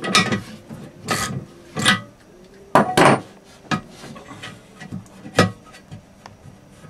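Wrench turning steel nuts on a boat's motor-mount bracket, a series of short rasping scrapes about once a second, as the mount is adjusted to bring the electric motor into shaft alignment.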